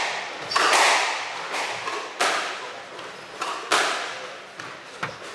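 Squash rally: the ball is struck by rackets and hits the court walls, giving sharp hits about every second and a half, each followed by a short echo from the court.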